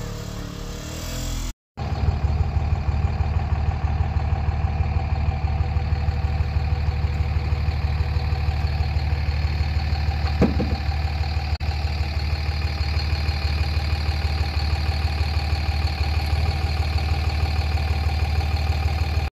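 Side-by-side UTV engine idling steadily with an even, repeating pulse, starting after a cut about two seconds in. A brief squeak about halfway through.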